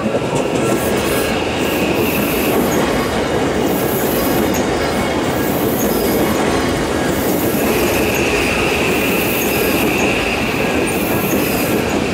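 A ten-car Odakyu 5000 series electric train passing close by, with a steady rumble of wheels on rail. A high, steady wheel squeal stops about two and a half seconds in and returns about seven and a half seconds in.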